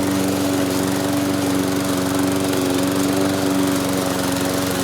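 Gas-powered walk-behind lawn mower engine running steadily at mowing speed, one unchanging tone.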